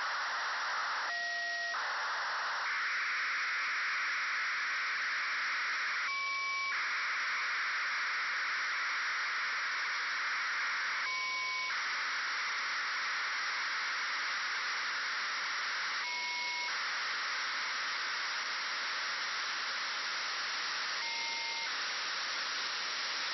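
FUNcube-1 (AO-73) satellite's 1200 bps BPSK telemetry downlink, demodulated by a HackRF software-defined radio: a steady rushing hiss over radio static. About every five seconds it breaks briefly with short thin tones.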